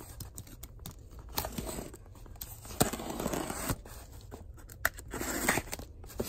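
Packing tape on a cardboard shipping box being cut and torn open, in short irregular scratchy stretches with a few sharp clicks.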